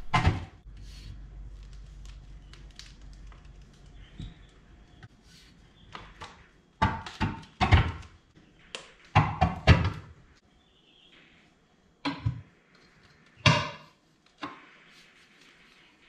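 Steel tire irons knocking and clanking against a steel wheel rim while the bead of a new rear tractor tire is levered onto it. The knocks are irregular, with the loudest cluster a little past the middle.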